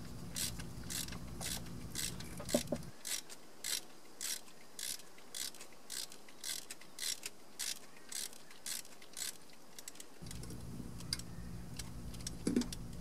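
Ratchet wrench on a 3/4-inch deep-well socket clicking about twice a second as it loosens a coolant temperature sensor; the clicking stops about three-quarters of the way through.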